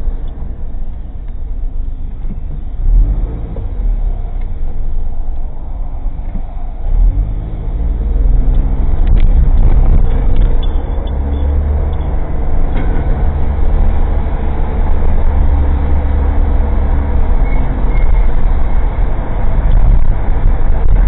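Engine and road noise of an old Suzuki Jimny kei car, heard from inside the cabin. About seven seconds in the engine note climbs as the car speeds up, then holds steady and louder, with a few light rattles and clicks.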